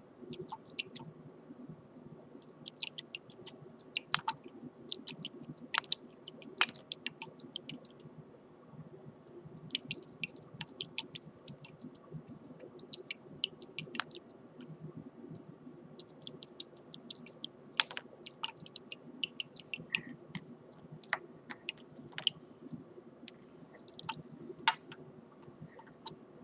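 Three glass test tubes held together in one hand, clicking against each other as they are shaken to dissolve solid samples in ethanol: quick runs of light ticks broken by short pauses, with a few sharper clinks.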